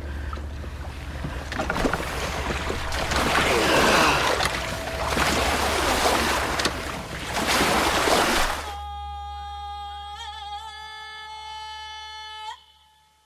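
Storm wind and sea waves: a dense noise that surges and swells over a low steady rumble. About two-thirds of the way in it cuts off abruptly to a single held high tone with overtones, which wavers briefly and stops shortly before the end.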